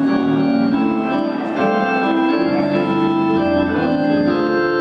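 Organ playing sustained chords that change about once a second.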